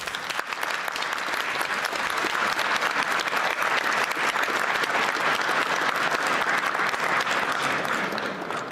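A large seated audience applauding, many hands clapping together; the applause swells in the first second, holds steady, then begins to fade near the end.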